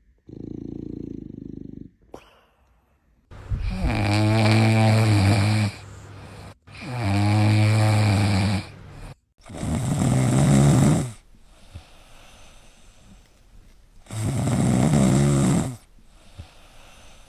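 Sleeping dog snoring: one short, quieter snore, then four long, loud, low-pitched snores a few seconds apart.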